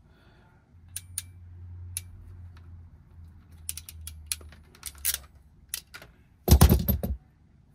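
Ratcheting crimping tool clicking as it is worked on a terminal pin at the end of a thin wire. Scattered clicks build to a quick run of ratchet clicks, with the loudest clatter near the end as the jaws close and release.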